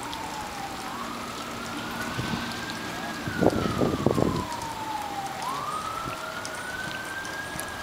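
An emergency vehicle's siren wailing, its single tone slowly rising and falling in pitch, with a few short louder sounds about halfway through.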